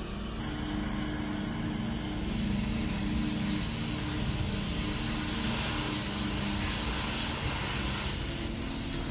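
Steel-cutting torch hissing steadily as it burns through rebar, over the steady hum of an engine.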